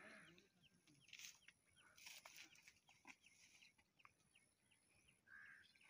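Near silence: faint open-air ambience of many short, high chirps repeating throughout, with a few soft rustles.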